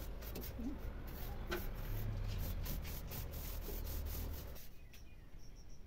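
Long-handled broom brushing and scraping across a woven bamboo ceiling in repeated strokes. The strokes die away about four and a half seconds in.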